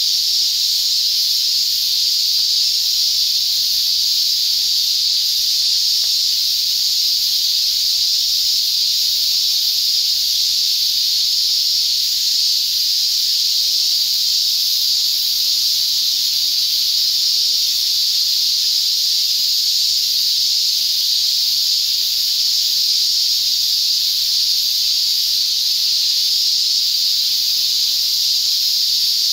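Loud, steady chorus of cicadas: one unbroken high buzz with no pauses.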